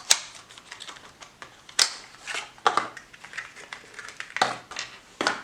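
Handling of a folding knife and its packaging: a few sharp clicks and knocks with short rustles between them.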